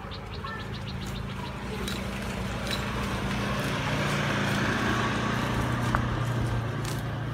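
A small motorbike engine running along the road, a steady low hum that grows louder toward the middle and then eases off.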